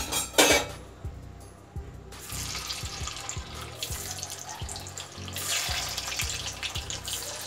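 Vegetable Manchurian balls hitting hot oil in a wok and deep-frying. A sharp sizzle comes at the start, and a steady sizzle builds from about two seconds in as the balls fry.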